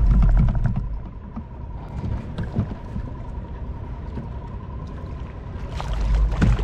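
Low rumble of wind buffeting the microphone, dropping away about a second in and returning near the end, with small scattered knocks and clicks of handling on a kayak in between and a faint steady high tone underneath.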